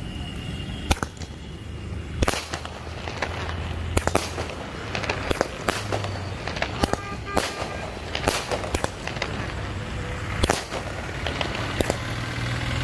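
A 12-shot aerial firework cake firing its shells in quick succession: repeated sharp bangs, roughly one to two a second. The shells go off as plain shots, without the crackling effect they are sold for.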